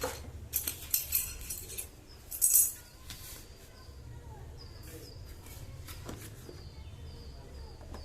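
Packaging being handled, rustling and crackling in several short bursts during the first three seconds, loudest about two and a half seconds in. Faint bird chirps follow.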